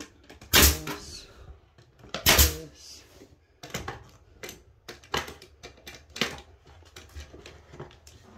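Pneumatic 18-gauge brad nailer firing two finish nails into quarter-round molding: two sharp shots about a second and a half apart, followed by several lighter clicks.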